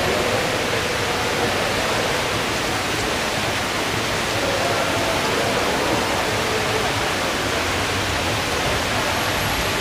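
Heavy tropical downpour driven by strong gusting wind, a steady dense hiss of rain and wind with no let-up.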